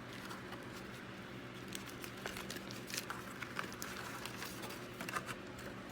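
Faint scattered clicks and rustling from small pistol parts and the frame being handled on a workbench, over a steady low hum.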